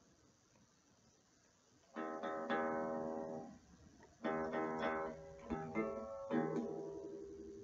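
Electric Stratocaster guitar strummed through a small Squier Frontman 10G practice amp: after a short pause, three or four chords are strummed, each left to ring and fade.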